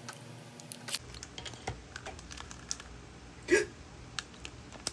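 Small scattered clicks and crinkles of badge packaging being handled and opened, with one short vocal sound like a hiccup about three and a half seconds in.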